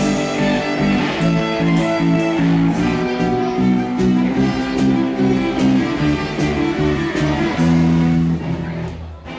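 A band playing a song, guitars to the fore, with held melody notes changing about twice a second; the music drops in level just before the end.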